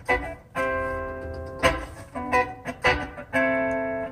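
Blues music with single plucked guitar notes that ring on, played over the Volvo XC90's Morel Elate Titanium speakers driven by Audison amplifiers and an Audison Bit HD Virtuoso processor. It is heard inside the car's cabin.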